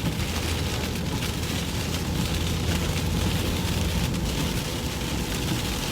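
Steady road noise inside a pickup truck driving through heavy rain: a low rumble of tyres and engine with a faint steady hum from the tyres on the wet road, under a hiss of rain and spray.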